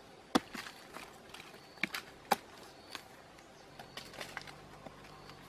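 Sharp snaps and cracks of rotten wood being broken apart by hand, several in quick succession, the loudest about two seconds in, with smaller cracks after.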